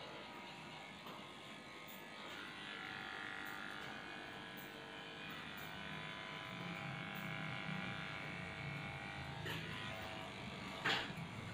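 Cordless electric dog clipper running steadily as it shaves through a Shih Tzu's matted coat around the neck and head. Near the end there is one brief, sharp, louder sound.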